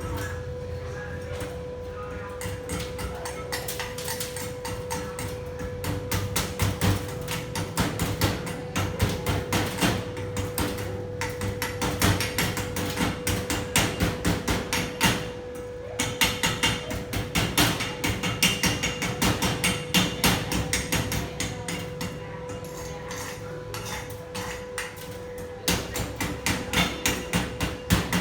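A hammer striking metal in quick, repeated blows, several a second, with short let-ups along the way. A faint steady hum runs underneath.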